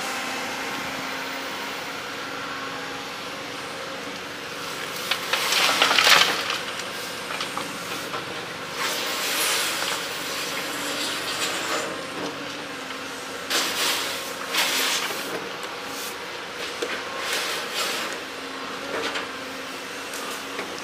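Hydraulic excavator's diesel engine running steadily, with several bursts of hissing, rushing noise as the machine works. The loudest burst comes about six seconds in.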